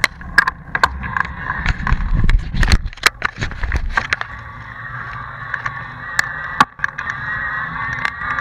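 Bicycle ridden over a rough road surface, heard from a camera on the bike or rider: repeated sharp knocks and rattles from the bumps over a low rumble. From about four seconds in, a steady whirring runs on.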